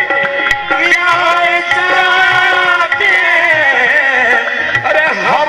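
Qawwali music: a voice singing over held harmonium tones, with a steady hand-drum beat. The sung line glides down about halfway through.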